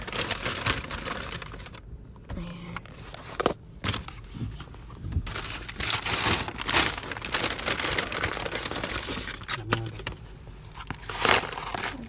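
Brown paper fast-food takeaway bag and cardboard food boxes rustling and crinkling in irregular bursts as food is unpacked by hand.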